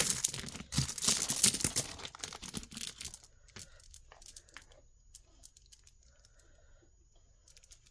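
Plastic bag crinkling and rustling as a piece of jewelry is pulled out and unwrapped. About three seconds in, this gives way to scattered faint clicks as the beaded necklace is handled.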